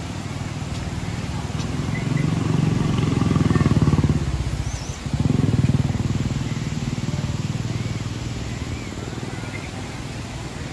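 A motor vehicle's engine running as it passes on the road. Its low, pulsing rumble swells for a few seconds, dips briefly about five seconds in, surges again, then slowly fades.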